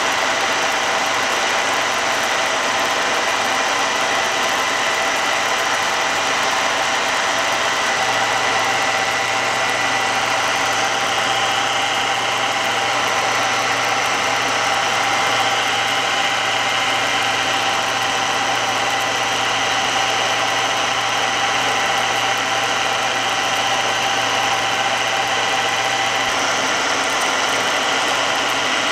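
A milling machine runs steadily with its spindle turning and its table power feed engaged. Its high-speed steel cutter is dry-cutting a helical groove into a brass shaft. The noise is loud and rowdy, with a steady whine, and a low hum grows stronger about eight seconds in.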